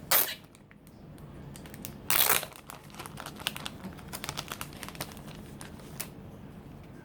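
Packaging of a sticker set being opened by hand: two loud rips or crinkles about two seconds apart, then lighter crinkling with small clicks as it is handled.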